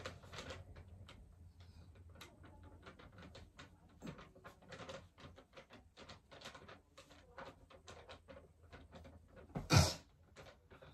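Pen scratching and tapping on paper as an answer is written down, a quick run of small scratches and clicks. Near the end there is one short, much louder bump.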